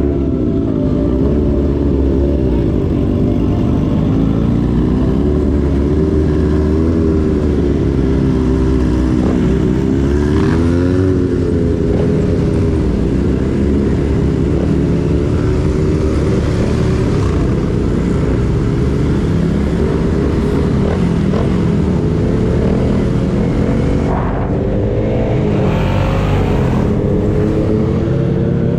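Motorcycle engine running under way, its revs rising and falling as the rider throttles on and off.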